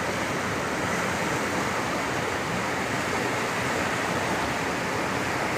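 Steady rushing of a fast-flowing river over rocks, an even wash of water noise.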